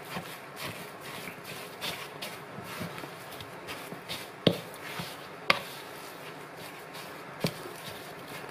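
Wooden spoon stirring grated cassava with sugar and desiccated coconut in a bowl: soft, steady scraping, with three sharp knocks of the spoon against the bowl in the second half.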